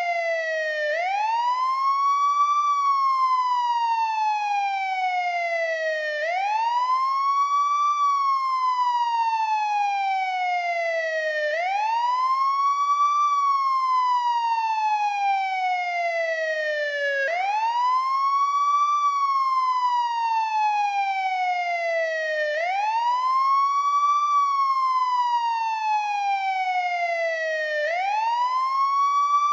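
Old-model NYPD police siren in wail mode: a steady, slow cycle in which the tone sweeps up quickly over about a second and a half, then falls slowly over about four seconds. It rises six times, roughly every five seconds.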